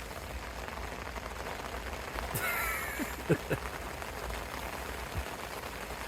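Steady rain falling, with a duck's short, harsh call about two and a half seconds in and a few quick low sounds right after it.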